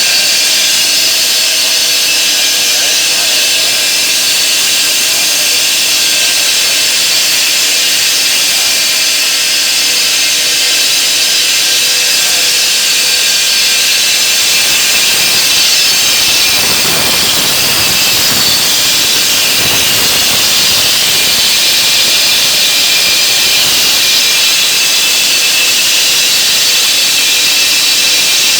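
Homemade semi-automatic stone-cutting machine running, its saw blade cutting stone with a loud, steady, high hiss. A little past the middle, a rougher, lower grinding joins in for a few seconds.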